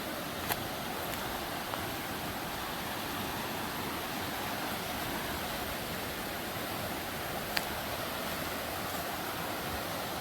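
River water rushing over boulders in a steady hiss, the river running high after heavy rain. Two short clicks stand out, one near the start and one near the end.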